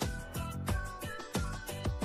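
Background music with a steady beat of about three drum hits a second and a melody over it.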